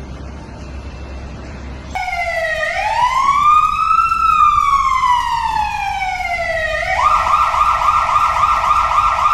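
Emergency vehicle siren starting abruptly about two seconds in: one slow wail that rises and then falls in pitch, then a switch to a fast warbling yelp that cuts off suddenly near the end. Before it, only a low steady rumble.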